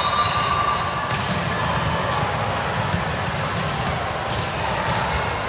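Indoor volleyball rally in a gym: a few sharp thuds of the ball being hit over the steady background noise of a large hall with distant voices.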